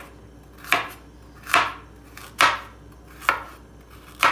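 Chef's knife slicing a carrot into rounds on a wooden cutting board: five slow, evenly spaced cuts a little under a second apart, each ending in a knock of the blade on the board.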